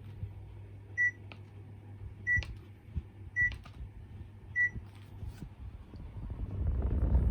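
Panasonic Envio inverter split air conditioner's indoor unit beeping four times, about a second apart, as it takes commands from its remote, with light clicks around the beeps over a low steady hum. Near the end a rushing noise swells up.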